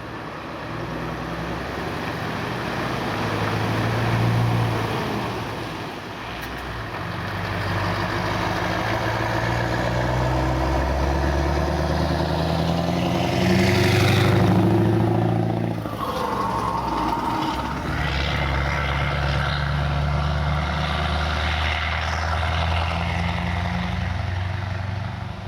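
Scania R 580 timber truck's V8 diesel engine pulling hard as the truck drives by, the engine note dropping and picking up again a couple of times. It is loudest about halfway through, where its pitch falls as it passes.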